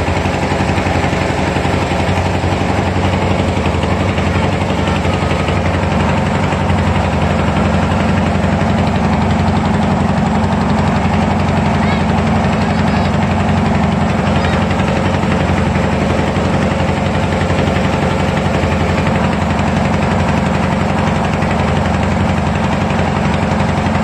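A boat's engine running steadily with a constant low drone.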